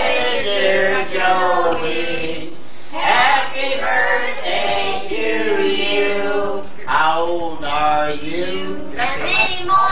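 Several voices, women's and men's, singing together unaccompanied in held, wavering notes with short breaks between phrases.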